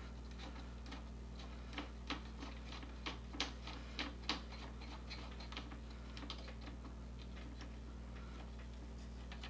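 Faint, irregular small plastic clicks and taps as a ribbon cable is pressed and fitted into a plastic cable holder by hand, over a steady low hum. The clicks bunch together in the middle and thin out towards the end.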